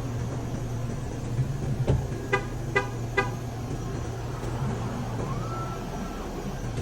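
Three short pitched toots about half a second apart over a steady low hum, then a faint tone that rises and holds briefly near the end.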